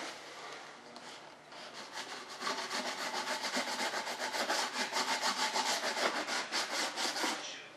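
Hand sanding the seam of a freshly molded model-aircraft tail part: light rubbing at first, then from a few seconds in, rapid back-and-forth strokes of sandpaper, about five a second, that stop just before the end.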